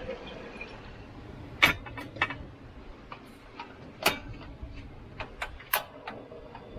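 A run of about ten irregular sharp clicks and knocks, three of them louder than the rest, over a steady low rushing noise.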